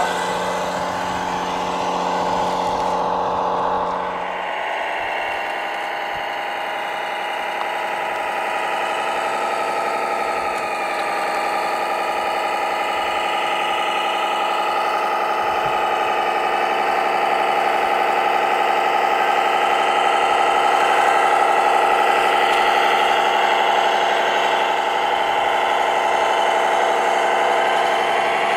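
Simulated diesel truck engine sound from a scale RC military 6x6 truck's sound module, running steadily as the truck tows a loaded lowboy trailer, with a change in tone about four seconds in.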